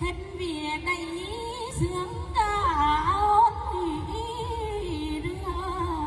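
A woman singing a Tày lượn cọi folk song into a microphone, in long wavering notes that slide up and down.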